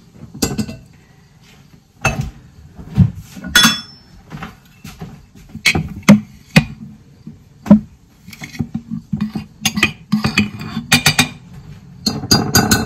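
Kitchen utensils clinking and tapping against a large glass jar and dishes: a run of irregular, sharp clinks and knocks with short pauses between them.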